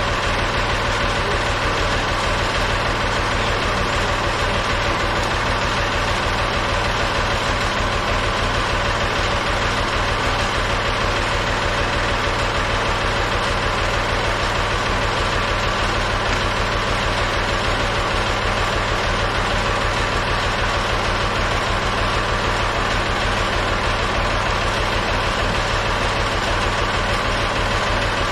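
Backhoe's engine idling steadily, with an even, unchanging beat.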